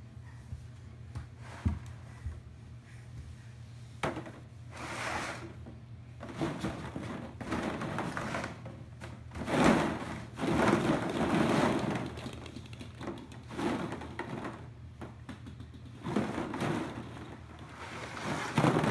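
Hollow plastic pit balls clattering and rustling against each other and the sides of a plastic kiddie pool as a toddler moves through them. A few single knocks at first, then from about six seconds in, repeated irregular bursts of clatter.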